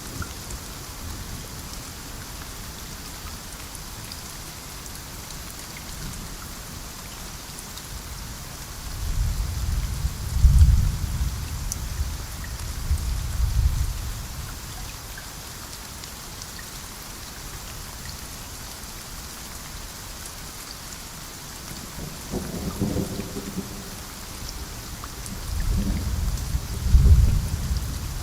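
Steady rain with thunder rolling in twice: a long low rumble swelling about a third of the way in, and another building from about two thirds in and peaking near the end.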